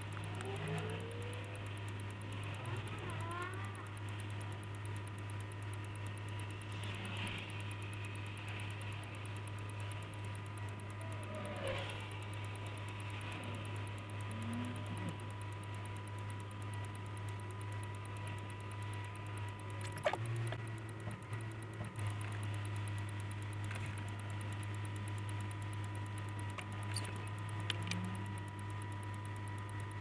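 Steady low hum heard from inside a car, with faint passing traffic and a sharp click about twenty seconds in.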